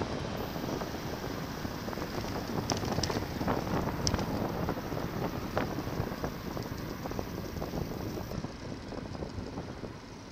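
Wind rushing over the microphone of a bike-mounted camera while riding, over a steady road rumble. A few sharp clicks come about three to six seconds in, and the sound eases a little near the end.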